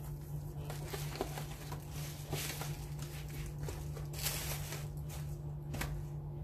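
Rustling and handling of a synthetic wig and its packaging as it is put back, in several soft spells over a steady low hum.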